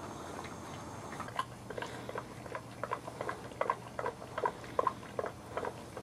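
Young boxer puppies making small noises: a string of short, irregular squeaks and clicks, roughly two a second, starting about a second and a half in.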